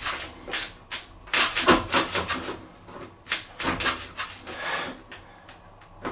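Adjustable wrench scraping and clicking against a washing machine's transport bolt in short, irregular strokes, louder about a second and a half in and again around four seconds. The wrench will not sit on the nut because the surrounding plastic pushes it off.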